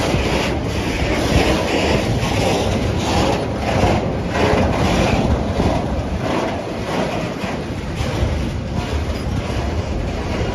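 Freight train of tank wagons rolling past close by, a steady noise of steel wheels running on the rails.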